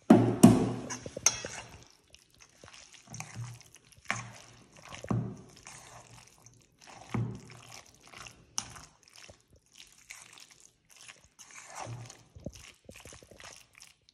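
Metal spoon stirring a thick chicken and cheese filling in a stainless steel bowl: irregular wet scrapes and knocks against the bowl, loudest in the first second or so.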